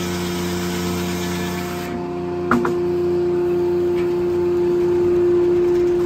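Corley circle sawmill running, its large circular blade spinning with a steady hum while sawing an oak cant. The higher sawing noise falls away about two seconds in, leaving the hum. A single sharp clank comes about halfway.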